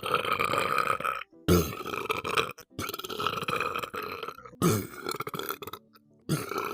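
A person burping on purpose: a run of long, drawn-out burps, about five in a row, each lasting a second or more, with short pauses between them.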